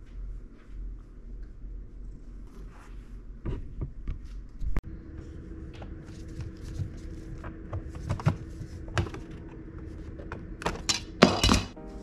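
Scattered knocks and clunks with the whir of a cordless electric screwdriver taking the screws out of wall outlet and light-switch cover plates. There is a steady motor hum in the middle, and the loudest clatter comes near the end.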